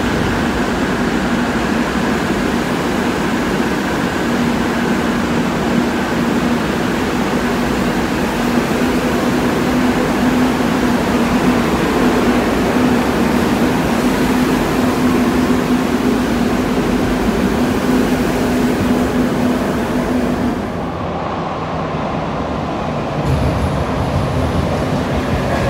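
Madrid Metro train pulling out of an underground station, a steady motor hum over the rumble of the cars as it goes past. Near the end the sound changes to a quieter station, then the low rumble of another train coming in.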